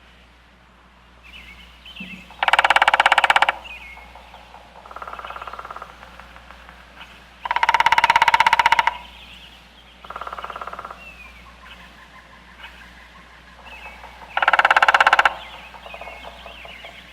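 Woodpecker drumming: rapid rolls of knocks on wood, each about a second long. Three loud rolls come several seconds apart, with two fainter ones between them, and small birds chirp faintly in the background.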